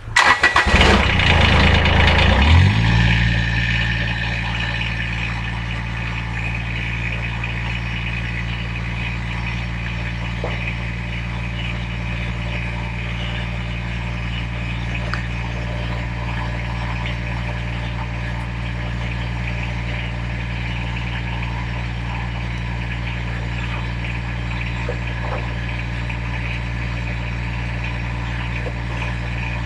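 An engine starts up loudly, its speed falling over the first two or three seconds, then settles into a steady idle.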